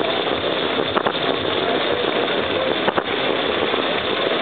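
Aristocraft G-scale model train running along its track, a steady rolling rumble heard from a car within the moving train, with two sharp clicks about one and three seconds in.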